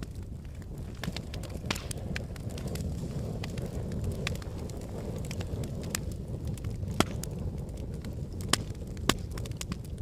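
A lava flow crackling, with irregular sharp cracks and clinks over a steady low rumble. Three louder cracks come near the end.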